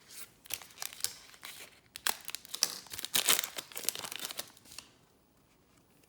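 A trading card pack's wrapper being torn open and crinkled by hand: a run of crackling rips, loudest in the middle, then stopping about a second before the end.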